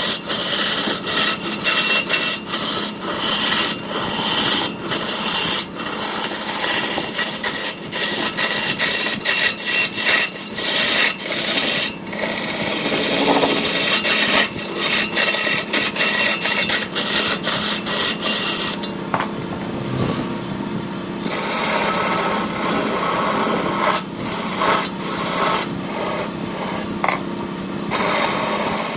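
A cutting tool scraping into wood spinning on a large wood lathe: a harsh, hissing scrape that breaks off and starts again many times, then runs steadier in the last third.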